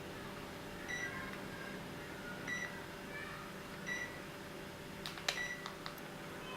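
Short, flat electronic beeps recurring every second or so over a steady low hum, with a few clicks near the end.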